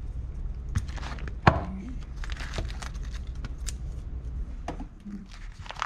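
Scissors cutting open a clear plastic bag package, the thin plastic crinkling between scattered sharp clicks, the loudest about a second and a half in.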